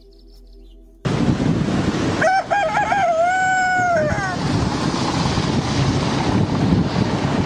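A rooster crows once: a cock-a-doodle-doo of about two seconds, with a wavering start and a long held last note that drops away at the end. It sits over a loud, steady rushing noise that cuts in suddenly about a second in.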